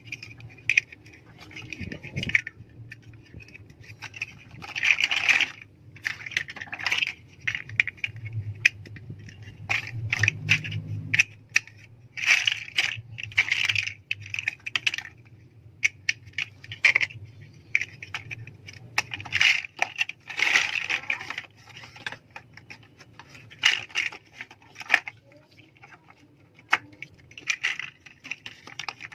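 Plastic LEGO bricks being handled and pressed together: irregular sharp clicks and snaps, with short bursts of pieces rattling and scraping against each other.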